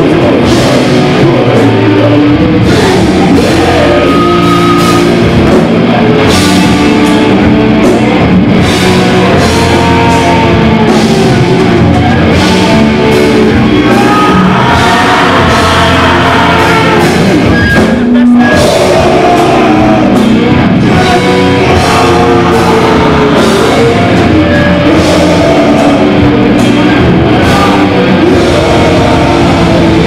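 Metal band playing live and loud: distorted electric guitars, drum kit and shouted vocals through the PA, with a momentary break a little past halfway.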